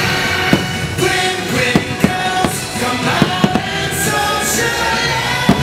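Fireworks show music playing loudly, punctuated by about eight sharp bangs of aerial firework shells bursting overhead.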